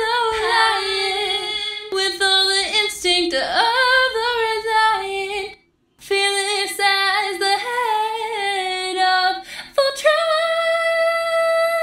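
A woman singing the closing lines of a song parody. There is a short break about halfway through, and from about ten seconds in she holds one long high note.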